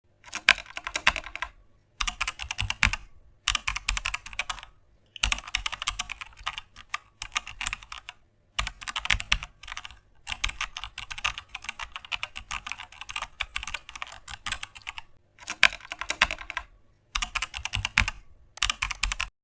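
Computer keyboard typing in fast runs of keystrokes, each run a second or two long with short pauses between them.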